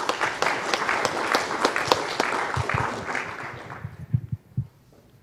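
Audience applauding, dying away after about four seconds, followed by a few scattered knocks.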